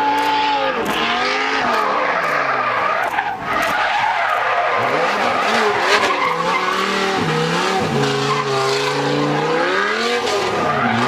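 Dodge Viper drift car's V10 engine revving up and down again and again while its rear tyres squeal and skid through a sustained drift. About eight seconds in, the revs hold steady for a moment before climbing and falling once more.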